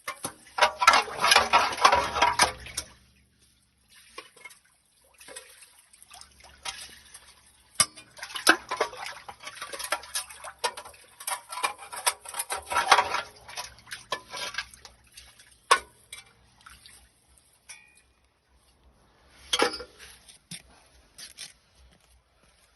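Metal clinking and scraping mixed with splashing water in a drain, in three bursts of clatter with scattered clicks between them.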